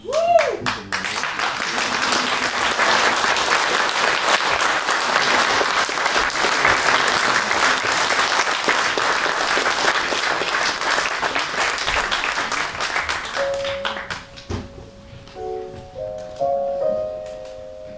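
Audience applauding in a theatre hall, dense clapping that fades out about fourteen seconds in. As it dies away, a few held piano notes begin.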